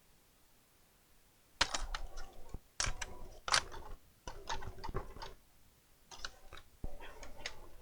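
Sharp plastic clicks and taps from the Fujitsu Siemens Amilo Li1818 laptop's case being handled and pried during disassembly. They come in irregular clusters, starting about a second and a half in.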